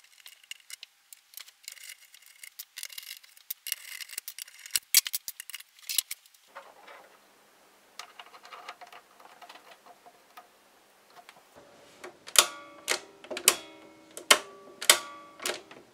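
Metal parts of an old valve wire recorder being handled as its knobs and top plate are taken off: scattered clicks and light scrapes, then a quick run of sharp metallic clinks that ring on briefly, starting about twelve seconds in.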